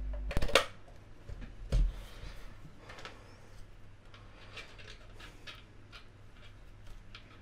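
A low electrical hum cuts off with a sharp click about half a second in, followed by a knock near two seconds and faint scattered taps and clicks as the pedal and its cable are handled on the bench.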